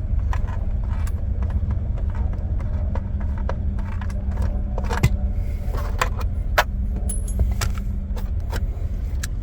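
Irregular small clicks and light knocks of hard parts being handled at the glove box, as a makeshift fastener is taken off, over a steady low rumble and hum.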